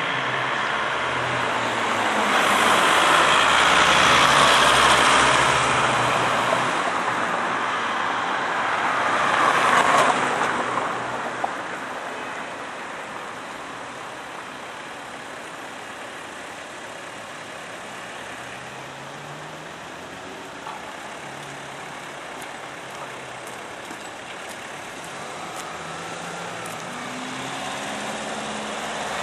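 Road traffic on a city street: a vehicle passes close in the first few seconds and another at about ten seconds, then quieter traffic noise with engines faintly pulling away.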